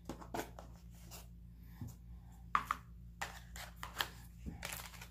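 Hands handling jewelry and its packaging: irregular clicks, taps and rustles, a few sharper clicks in the second half.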